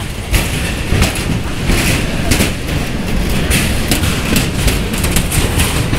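Busy commuter-rail platform: a crowd's footsteps and clatter over a steady low train rumble.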